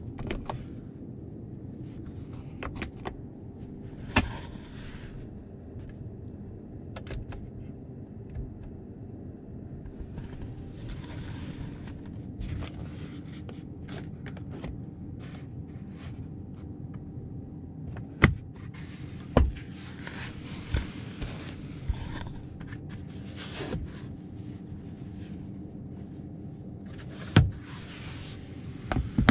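Cabin noise of a 2022 Ford F-150 Lightning electric pickup on the move: a steady low road and tyre rumble, with no engine sound, broken by scattered sharp clicks and knocks. The knocks are loudest in the second half.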